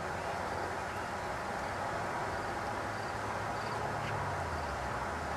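Steady outdoor background hiss, with the low, steady rumble of a motor vehicle coming up in the second half.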